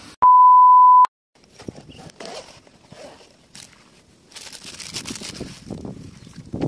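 A loud, steady electronic beep lasting under a second, then hands handling a drone carry case and its plastic-wrapped parts: plastic rustling with light clicks and taps.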